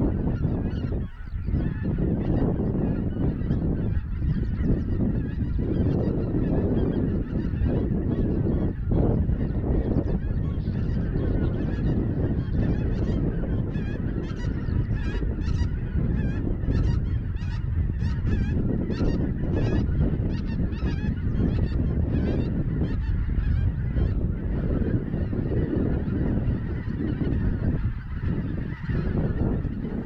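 A large flock of migrating geese honking continuously overhead, with many calls overlapping into a steady clamour.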